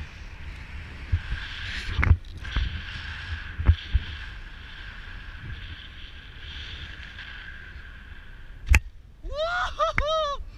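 Steady wind rush over a helmet camera during a parachute descent, with a few knocks, then a sharp thump about nine seconds in as the base jumper touches down, followed by two rising-and-falling whoops from him.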